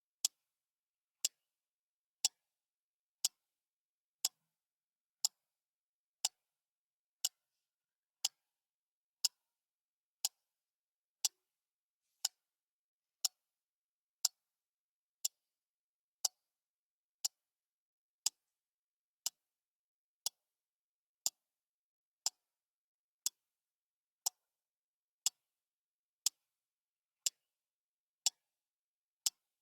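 Clock ticking steadily, one sharp tick each second with silence between the ticks.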